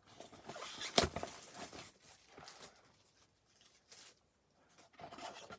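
Crinkling and rustling of packaging as the next sealed box of sports cards is opened, with a sharp click about a second in; fainter scattered handling noises after about two seconds.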